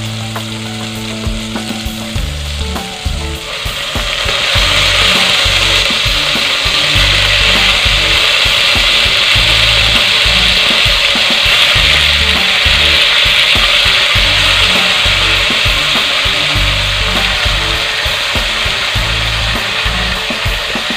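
Raw chicken pieces, marinated in pineapple juice, frying in hot oil with sautéed garlic, onion and tomato in a pot: a steady sizzle that gets clearly louder about four seconds in as the chicken goes into the pot.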